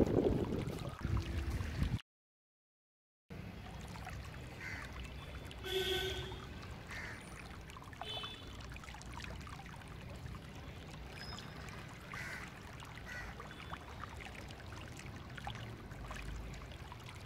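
Loud wind rumbling on the microphone, cut off by a second of dead silence. Then a quiet, steady outdoor background with a few faint short ringing tones, the clearest about six seconds in.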